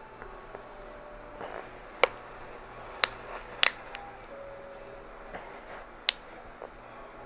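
Four sharp clicks, the third one doubled, spaced one to three seconds apart over a low room background.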